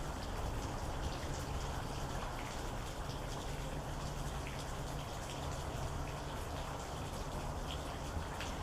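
Steady rain falling, with many individual raindrops tapping on a surface over an even hiss and a low rumble underneath.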